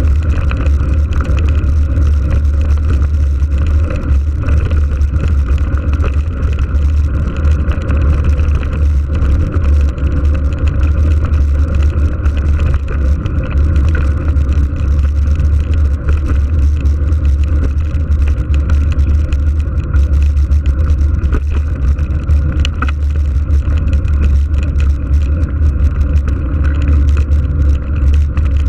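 Steady, loud low rumble of wind buffeting the microphone of a camera riding on a moving mountain bike.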